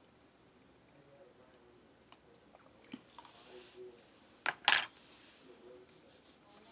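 A mouthful of raisins chewed quietly, then a plastic spoon set down on a plastic meal tray with two sharp clacks about four and a half seconds in, followed by a few light clicks.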